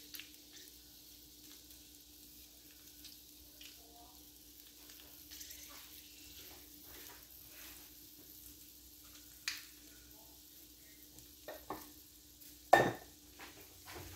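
Oil sizzling faintly on a hot tawa under skewered boiled quail eggs, with a few sharp clicks, the loudest near the end.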